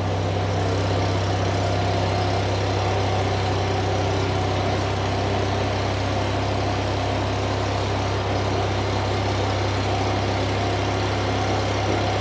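Stick (arc) welder running steadily under a welding arc: a constant low hum with a dense, even crackle as a rod burns a test bead. The steady crackle is a sign the welder is set correctly and burning well.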